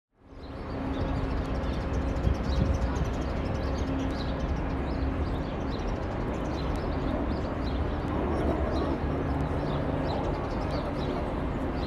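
Outdoor city street ambience: a steady low rumble of traffic with small birds chirping over it, fading in at the start.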